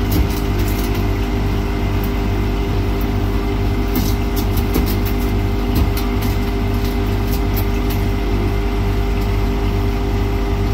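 Ice machine running: a steady mechanical hum with a low drone, with light ticks now and then, a cluster of them about four seconds in.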